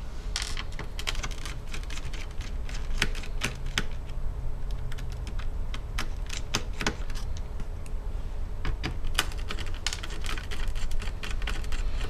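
Small, irregular clicks and ticks of a screwdriver working small screws out of a laptop's palm rest, the metal tip clicking on the screw heads and the case.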